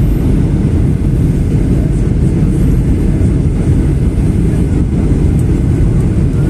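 Aeroplane in flight heard from inside the passenger cabin: a loud, steady, deep rumble of engines and airflow.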